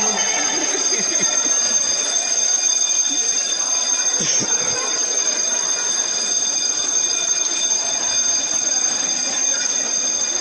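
Electric alarm bell ringing steadily without a break, sounding an evacuation, over the noise of a crowd hurrying down a stairwell.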